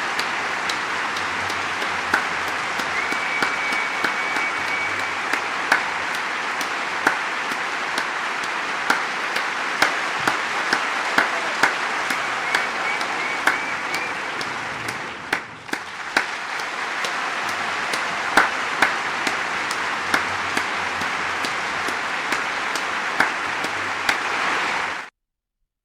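Large crowd applauding, a dense steady patter of many hands with individual sharp claps standing out. The clapping dips briefly about halfway through, picks up again, and cuts off abruptly near the end.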